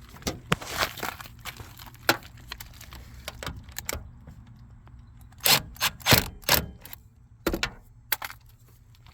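Irregular metallic clicks and knocks of a hand tool working the door jamb light switch back into the door frame, with a louder run of knocks about five and a half seconds in and a couple more near the end.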